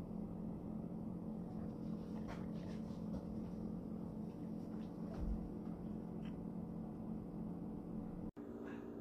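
Steady low hum of room tone, with a few faint clicks and a soft low thump about five seconds in; the sound cuts out for an instant near the end.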